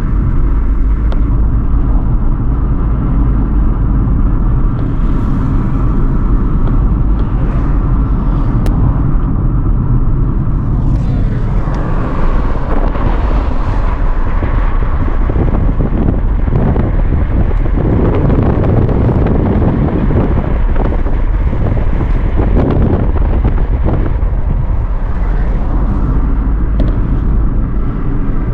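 A car driving on a road: steady engine and tyre noise, with the sound of the traffic changing about eleven seconds in.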